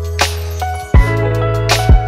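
Instrumental background music: held bass and keyboard-like notes with drum hits.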